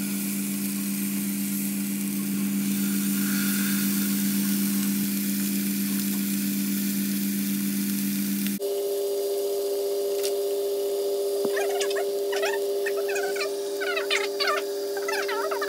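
Salmon fillets sizzling in a dry non-stick frying pan over medium heat, over a steady hum that steps up in pitch about halfway through. In the last few seconds the sizzle breaks into quick crackles and pops as the fish releases its own oil.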